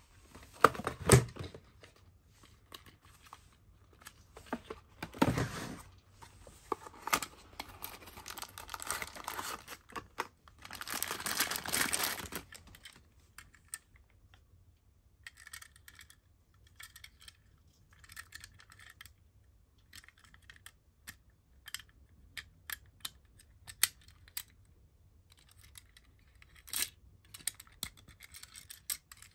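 A small cardboard toy box being handled and opened: a couple of knocks, then several seconds of paper rustling and sliding as the die-cast Tomica ambulance is drawn out. After that come sparse small clicks and taps as the die-cast model is turned in the fingers and its rear door is worked.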